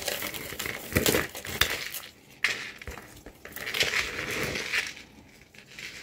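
Loose jewelry clinking and rustling as pieces are picked through and handled, with a few sharp clicks.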